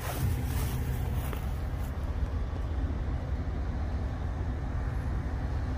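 Steady low rumble of a motor vehicle, even throughout with no distinct events.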